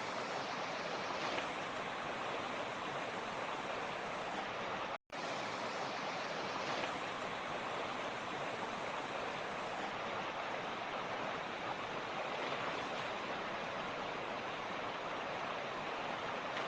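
Mountain creek water rushing and splashing over rocks in a steady, even rush, broken once by a split-second dropout to silence about five seconds in.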